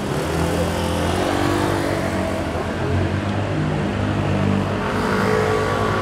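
A motor vehicle's engine running close by, its pitch shifting up and down several times.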